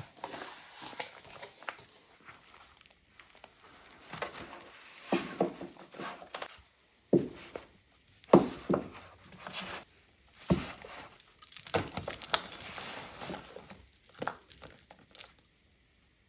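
Paper cards, letters and notes being handled and shuffled, rustling and sliding, with several sharp knocks as items are set down about 7, 8.5 and 10.5 seconds in.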